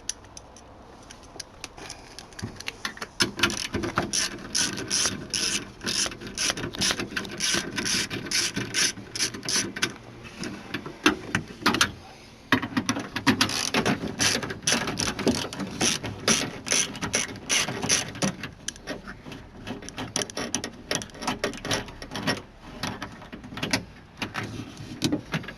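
Socket ratchet clicking rapidly as two 10 mm bolts are undone, with a short pause about halfway through.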